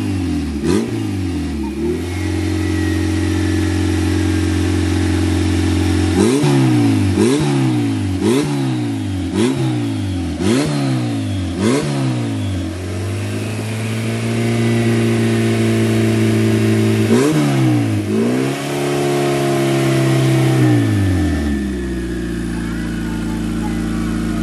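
Turbocharged Honda Civic engine being revved from idle: a few short blips, then six quick sharp revs about a second apart, a longer held rev with two more blips, and a drop back to a steady idle near the end.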